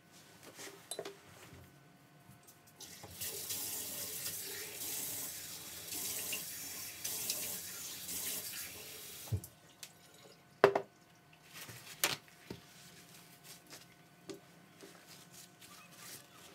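Water running from a tap for about six seconds, then stopping, followed by two sharp knocks a second and a half apart.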